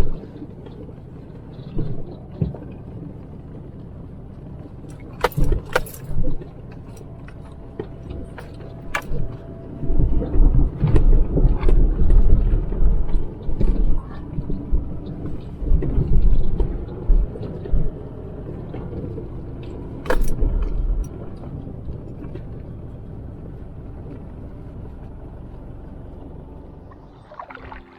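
A car driving over a rough road, with a steady low rumble, heavy jolts through the middle, and loose items rattling and clicking.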